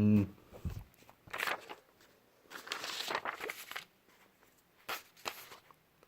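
Scattered short handling noises: a thud, a sharp tap, then a longer stretch of rustling, and two short clicks near the end.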